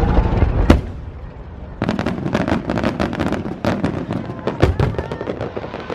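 Aerial fireworks going off: a single loud bang under a second in, then from about two seconds in a dense run of rapid crackling pops from crackle-effect shells, with a deeper boom near the end.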